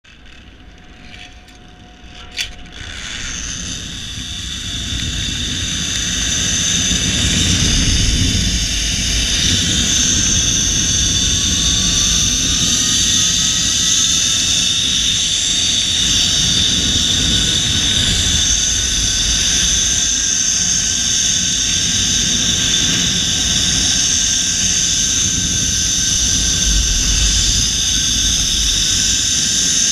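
Zip line trolley pulleys running along a steel cable: a steady high whine, one tone slowly rising in pitch, over wind rumbling on the microphone. A sharp click comes about two seconds in, and the sound builds over the next several seconds as the ride gathers speed, then holds steady.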